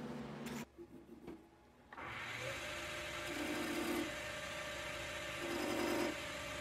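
Wood lathe running with a poplar blank spinning, and a pencil pressed twice against the turning wood to mark lines, each time a brief rubbing about two seconds apart. The sound drops away briefly about a second in.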